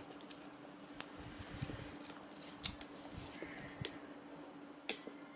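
A person eating with a spoon, with a few light clicks of cutlery on a dish and soft mouth and food sounds, over a steady low hum.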